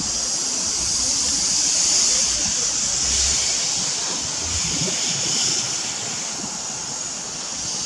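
Steam tank locomotive No. 12 of the Isle of Man Steam Railway hissing steadily and loudly from its open cylinder drain cocks as it moves off, clearing condensed water from its cylinders.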